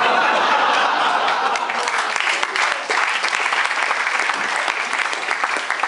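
Audience applauding, dense steady clapping that starts suddenly just after a punchline.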